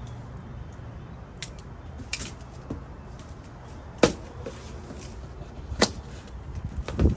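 A cardboard box and its packing being handled: rustling, with about five sharp knocks and clicks, the loudest about four seconds in, over a steady low rumble.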